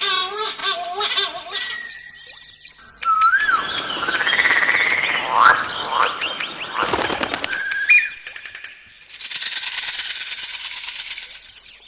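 A run of different bird and animal calls, changing every second or two: fast chirping trills and whistled notes at first, then rising and falling calls over a noisy hiss, a few sharp clicks, and a long even rasp near the end.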